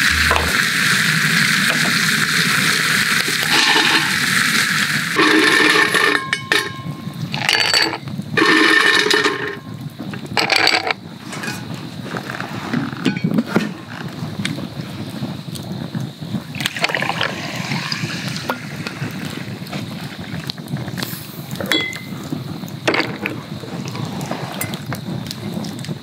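Food sizzling over a campfire for the first few seconds, then ice cubes clinking in a glass in several separate bursts, and liquid poured over the ice for a highball, with the fire crackling throughout.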